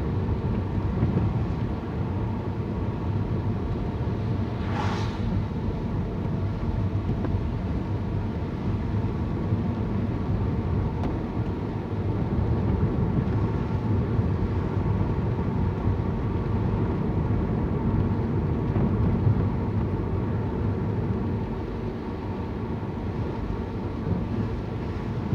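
Steady engine and road noise inside a moving car, with a brief higher sound about five seconds in.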